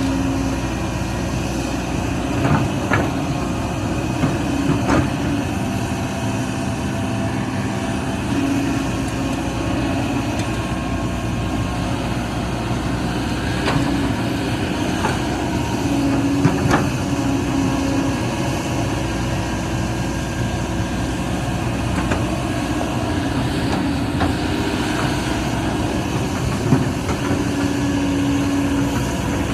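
Excavator's diesel engine running steadily, its pitch shifting a little as the machine works, with scattered short metallic clanks.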